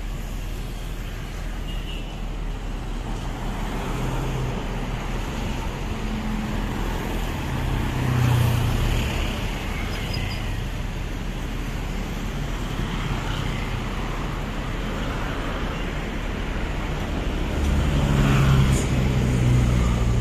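Motor vehicles passing on a road over a steady traffic rumble, with louder passes about eight seconds in and again near the end.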